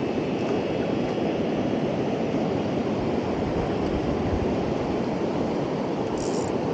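Steady rush of flowing river water, an even noise with no distinct events.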